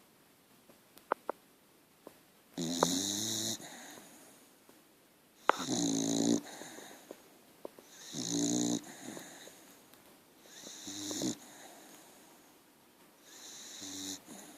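A sleeping dog snoring: five snores, each lasting under a second, coming a little under three seconds apart.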